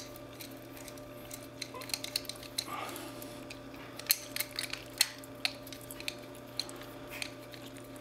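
Screwdriver backing a small screw out of a steel padlock body, with irregular small metallic clicks and scrapes as the screw turns and the lock is handled.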